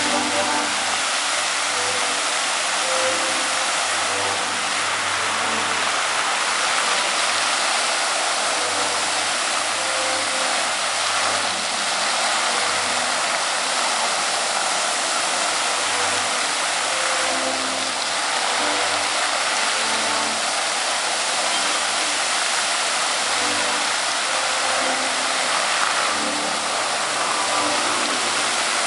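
Water jets of a large illuminated dancing fountain spraying and falling back into the pool: a steady rushing hiss of water, even in level throughout.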